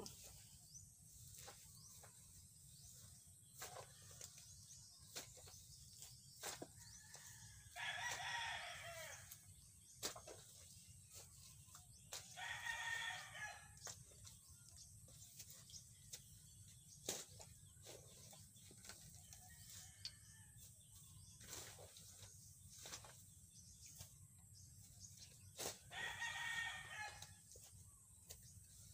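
A rooster crowing three times, each crow about a second and a half long. Between the crows are short, sharp knocks and scrapes of a shovel digging into the ground.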